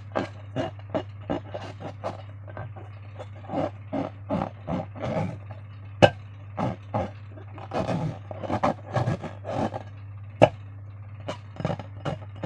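Slime being squeezed and worked by hand, giving irregular wet squelches and scrapes, with two sharp clicks about six and ten seconds in, over a steady low hum.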